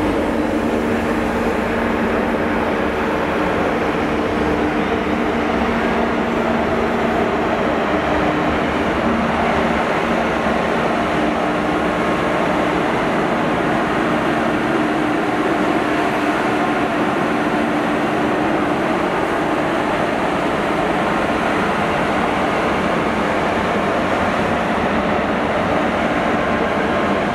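Diesel train running steadily: a GWR HST with its Class 43 power car moving past the platform, giving a steady engine drone with low humming tones and rail noise.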